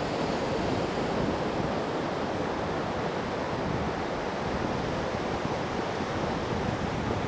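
Steady rushing noise of ocean surf, with wind buffeting the microphone and no seal calls.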